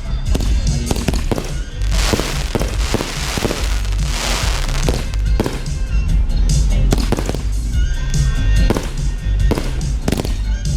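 Aerial fireworks going off in quick succession: repeated sharp bangs over a deep rumble, with a dense crackling hiss about two to five seconds in.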